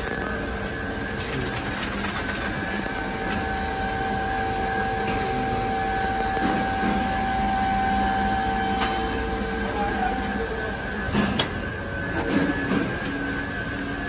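Glass tempering furnace machinery running: a steady industrial hum with several steady whining tones, one of which stops about ten seconds in. A couple of sharp knocks come near the end.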